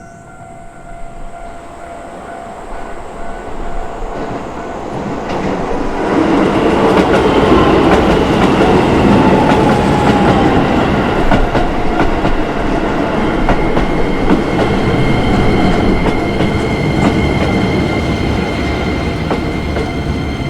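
Keisei Chiba Line electric train approaching and passing over a level crossing. It grows louder over the first six seconds, then runs past loudly with wheels clattering over the rail joints, under the crossing's warning bell.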